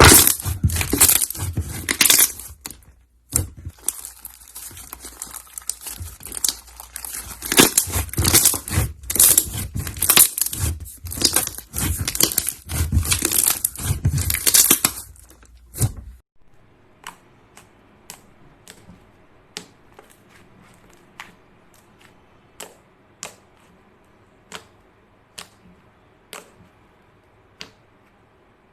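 Slime being squeezed and worked in the hands, giving dense crackling, tearing and popping noises. About halfway through it cuts to a much quieter stretch of single sharp pops, roughly one a second.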